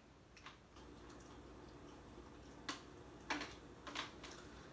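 Faint gulps of water drunk from a plastic bottle, then a few soft clicks and crinkles of the plastic bottle in the second half.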